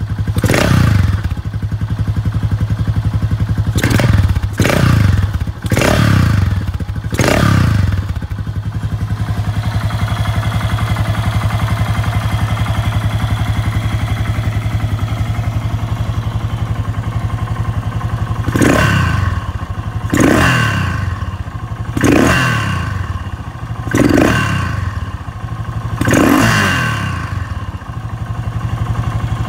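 Yamaha SRX600's air-cooled single-cylinder engine running through an aftermarket Yoshimura exhaust, given sharp throttle blips that each rev up and fall straight back to idle. About five blips come in the first eight seconds, then it idles steadily for about ten seconds, then five more blips follow about two seconds apart.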